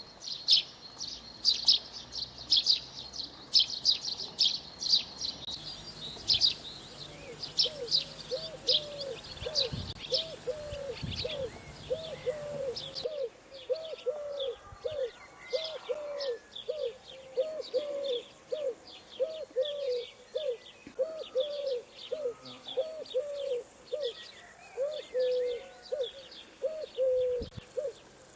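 Sparrows chirping in a busy chatter that thins out after about five seconds. From about seven seconds in, a low call repeats about twice a second almost to the end.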